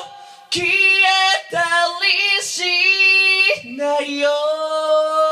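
Unaccompanied a cappella singing: after a brief pause, a few short sung notes lead into one long held note about four seconds in.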